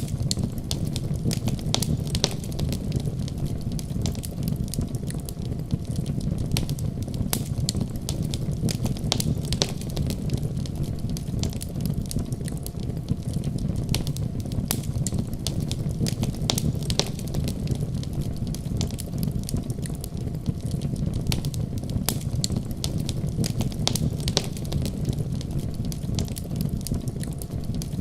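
Wood fire in a fireplace crackling, with many sharp irregular snaps and pops over a steady low rumble.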